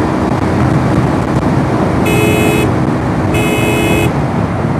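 Revolt 70cc motorcycle riding at speed, wind rushing over the microphone over the engine, with two short beeps of the bike's horn, one about two seconds in and a slightly longer one a second later.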